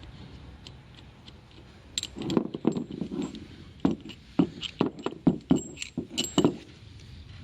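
A dozen or so sharp metal knocks and clinks over about four seconds, starting about two seconds in. They come from a steel sleeve, the old KamAZ bushing, being driven through a new MAZ-type shock-absorber bushing to widen its bore before it is fitted.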